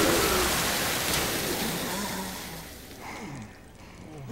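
Water gushing hard from a fire hose in a cartoon sound effect, a steady rushing spray that fades away over about three seconds.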